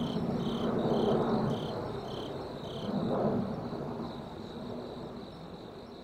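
Crickets chirping in the night, a high chirp about twice a second that stops about three seconds in, over a steady high insect trill. A louder low rushing noise swells twice, about one and three seconds in.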